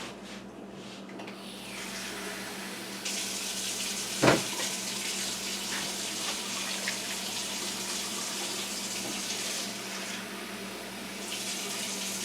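Kitchen tap running water, filling a container, with the flow easing briefly near the end before running again. A single sharp knock sounds about four seconds in.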